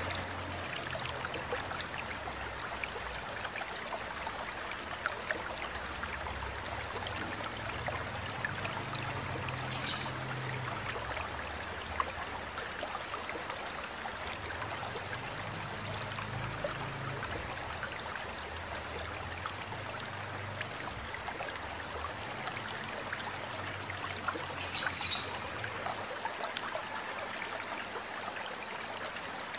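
Steady sound of a flowing stream, with a few brief high bird chirps, about ten seconds in and again about twenty-five seconds in.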